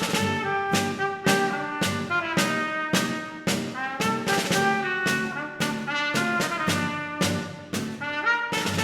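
Small brass ensemble playing a tune over a steady beat of regular accented strokes.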